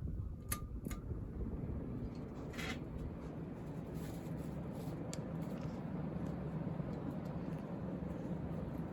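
1990 Casablanca Lady Delta ceiling fan running on high speed: a steady rush of air from the blades over a low motor hum, its bearings quiet. A few light clicks and a short rustle come in the first half.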